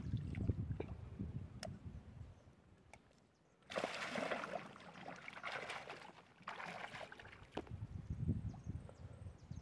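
Shallow water splashing as a released fish thrashes free from a wader's hands and swims off: a sudden loud splash about four seconds in and a second burst of splashing a few seconds later.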